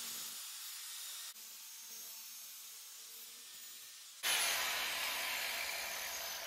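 Angle grinder with a 6-inch disc cutting into steel held in a vise, a steady high hiss of disc on metal. About four seconds in the disc comes out of the cut and the sound jumps louder, then fades with the pitch falling as the grinder winds down.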